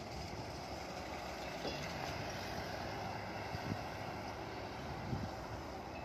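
Steady hum of distant traffic, the engines and tyres of the bus and other vehicles on the road below, with some wind on the microphone.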